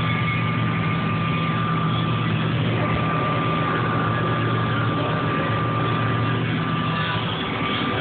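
John Deere combine harvester running while harvesting wheat, heard from inside the cab: a steady low drone with a thin, steady high whine over it.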